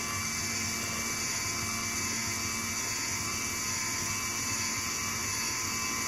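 Geared DC motor driving the robot's lead screw, running steadily with an even whir and hum as it slowly lifts the skewered steak platform.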